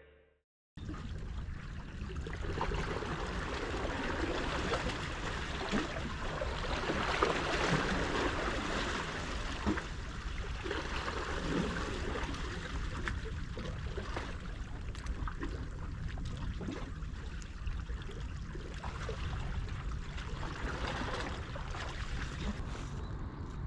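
Steady rain with water trickling and washing among rocks, with scattered small knocks.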